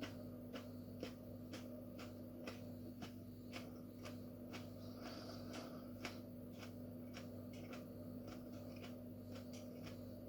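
Close-up mouth sounds of a person chewing a fresh chili pepper pod: faint, regular wet clicks of the jaw and teeth, about two a second, over a steady low electrical hum.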